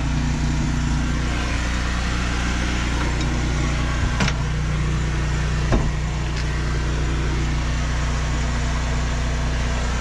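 Steady low drone of an engine or motor running without change, with two sharp clicks about four and six seconds in.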